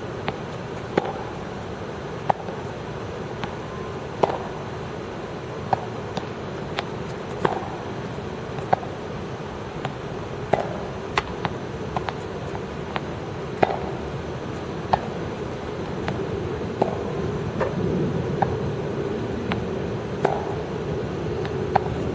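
Tennis balls being hit with rackets and bouncing during a drill: sharp pops about once a second, over a steady background hum.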